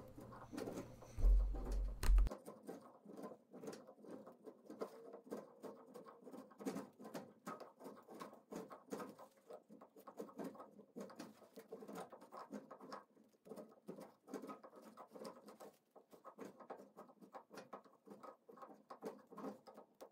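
Hand chisel paring the edges of a wooden handle: a steady run of short, irregular scraping cuts as shavings come off the wood.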